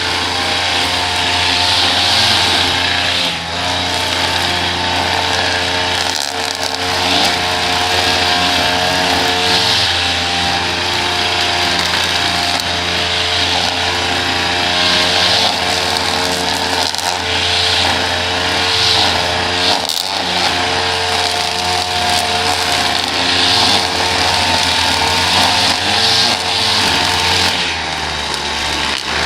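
Small gasoline engine of a piece of lawn equipment running steadily at working speed, with a higher hiss that swells every few seconds.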